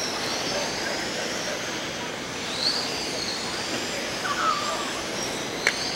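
Electric RC race cars with 17.5-turn brushless motors running on a dirt track: high-pitched motor and gear whines rising and falling as the cars pass, over a steady hiss. A sharp click near the end.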